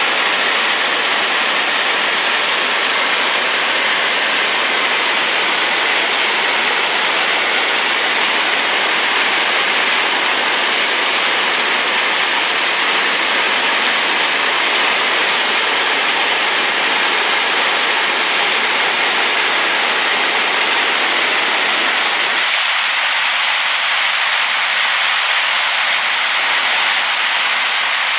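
Steady, loud rushing of a rain-swollen waterfall. About three-quarters of the way through, the deep part of the roar drops away abruptly and leaves a thinner hiss.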